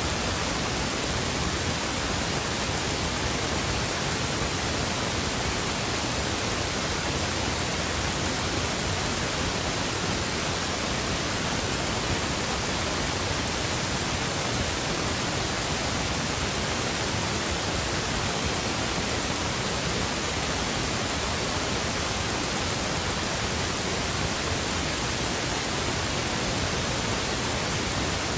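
Steady, unchanging hiss of static noise, even from low to high pitch, with no other sound in it.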